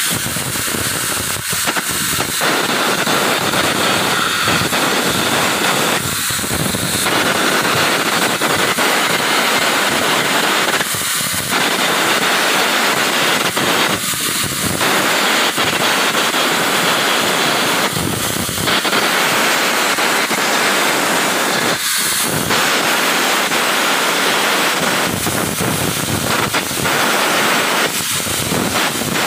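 Electric arc welding on a steel ship-hull plate: the arc's steady crackling hiss, with brief dips every few seconds.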